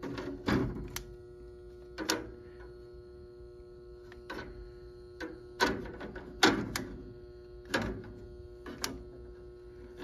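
Scattered sharp clicks and knocks, about ten in all, from a clamp meter and its test leads being handled against a sheet-metal water heater cabinet, over a steady electrical hum.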